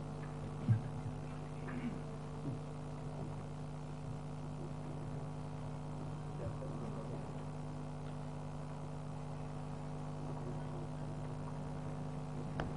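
Steady electrical hum from the hall's sound feed, with faint scattered knocks and rustles; a sharper knock comes less than a second in.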